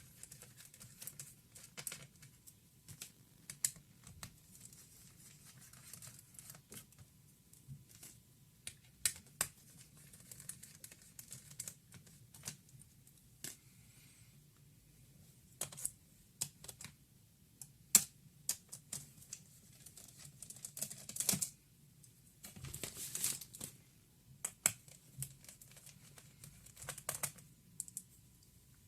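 Irregular small clicks and taps from hands working on a Lenovo G570 laptop's plastic case and parts, with a few short scraping, rustling stretches.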